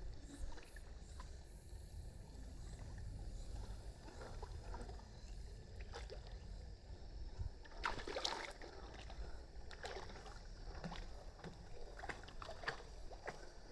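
Quiet lapping water and small splashes from a West Highland white terrier paddling in a swimming pool, with a few sharper splashes from about halfway through, over a steady low rumble.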